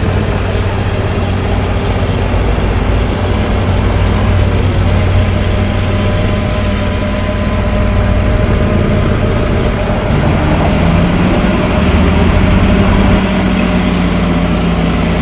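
Heavy earthmoving machine's diesel engine running steadily under work, its pitch shifting up about ten seconds in as the revs change.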